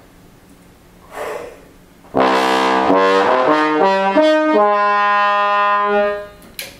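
Bass trombone with an Edwards dual-bore slide playing a short phrase: a quick run of notes, then one long held note about a second and a half long.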